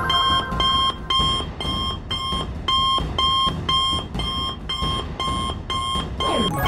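Cartoon wrist communicator's call signal: an electronic beep repeating evenly about twice a second, with a falling swoop near the end.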